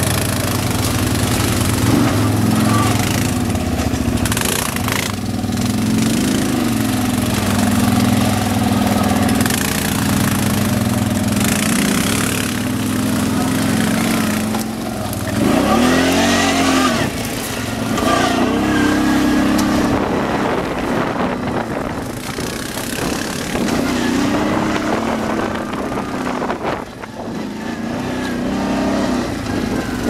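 Quad bike (ATV) engine running on a rough dirt trail, revving up and easing off again several times.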